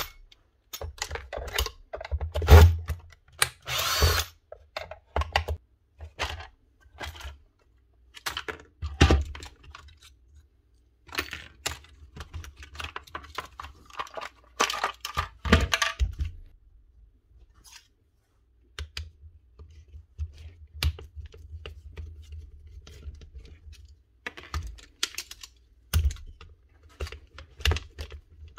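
A small electric power tool's motor spins in a few short bursts, between many clicks and knocks of tools and parts being handled on the bench.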